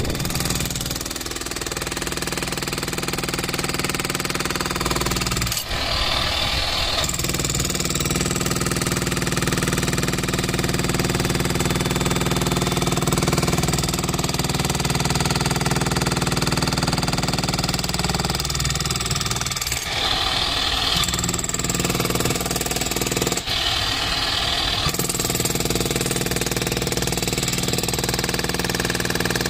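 Bosch GSH 11 E electric demolition hammer running, its chisel pounding steadily into concrete rubble. The hammering breaks off or changes briefly three times, about 6, 20 and 24 seconds in.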